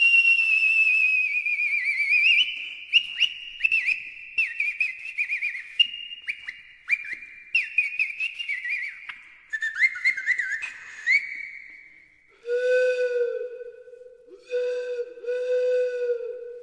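Pan flute playing a high held note with vibrato, then quick chirping trills and slides that imitate a lark's song. About twelve seconds in, a lower pan flute takes over with three short phrases of held notes.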